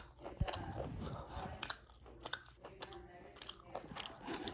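A person chewing and biting into a breaded fried chicken tender, with irregular crunches.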